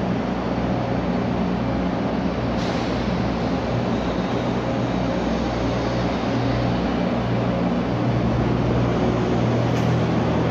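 Diesel engines of heavy lifting machinery running steadily, a continuous low rumble with a broad hiss above it.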